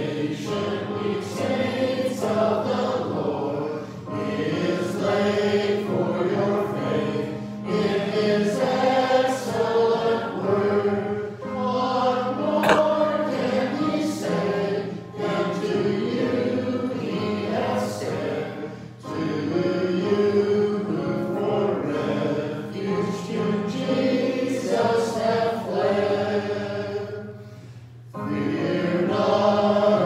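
Church congregation singing a hymn together over held low accompaniment notes, with a short pause near the end before the next verse begins.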